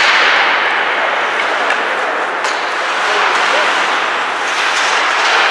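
Ice hockey game sound in an indoor rink: a steady wash of skates on the ice and indistinct voices, with a few sharp clacks of sticks and puck.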